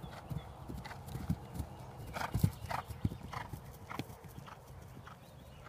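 Horse's hoofbeats on grass turf as it lands from a small jump and canters on: a run of strides, the loudest about two and a half seconds in, fading near the end.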